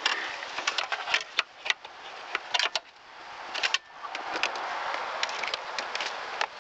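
Irregular sharp clicks and light rattles of the removed shift cable and its plastic and metal fittings being handled, with a steady background hiss.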